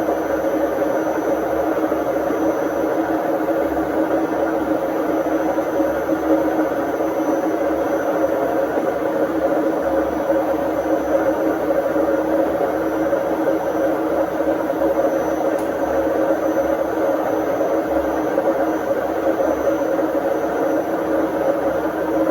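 Indesit IWD61450 washing machine running its service-mode test cycle, a steady whirring hum with a constant pitch and no pauses.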